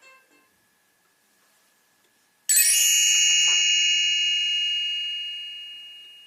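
A single bright bell chime that rings out suddenly about two and a half seconds in and fades slowly over several seconds. It is the read-along's page-turn signal, telling the listener to turn the page.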